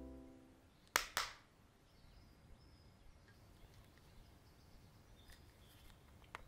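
Film score fading out at the start, then two quick sharp taps close together about a second in, followed by faint room tone with one small click near the end.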